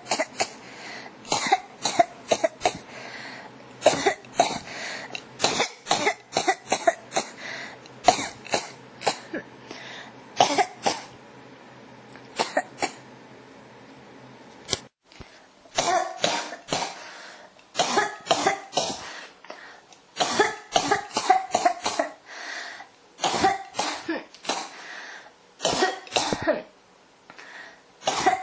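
A person coughing in repeated fits: runs of short, harsh coughs in quick succession, one after another with little pause. A faint low hum lies under the first half and stops abruptly about halfway through.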